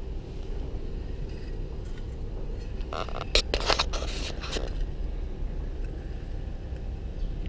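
Lathe running at low speed, turning a vacuum compressor housing while its runout is checked, a steady low hum. A short burst of scraping and clattering comes about three to four and a half seconds in.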